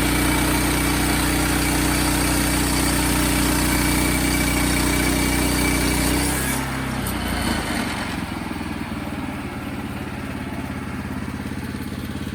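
Wood-Mizer band sawmill's engine running hard with the blade spinning, then throttled back about six seconds in, the high hiss dropping away as it settles to a lower, quieter idle.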